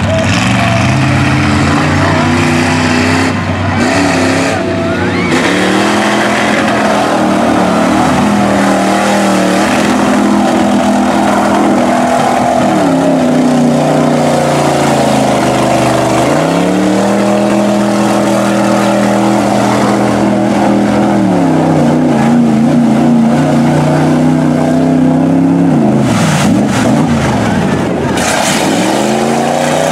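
Chevy small-block V8 of a mud truck on tractor tires, running at full throttle through deep mud. The engine pitch rises and falls several times as the revs climb and drop, with sharp dips near the end, while the tires churn the mud.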